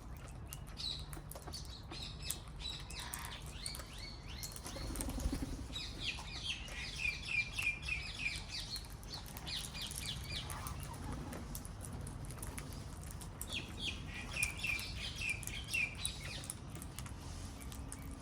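Wild parrots calling in quick runs of short, high chirping notes, three bursts of chatter with gaps between.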